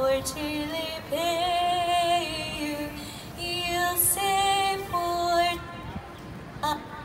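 A woman singing solo and unaccompanied into a microphone, with long held notes; the phrase breaks off about five and a half seconds in.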